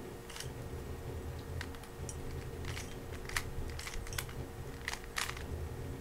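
Plastic 3x3 speed cube turned by hand, its layers clicking and clacking at an uneven pace, about a dozen clicks, over a steady low hum.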